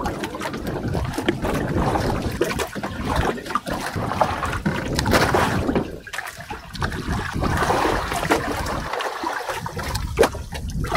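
Sea water lapping and splashing against the hull of a small outrigger fishing boat, with wind rumbling on the microphone and occasional knocks of gear on board.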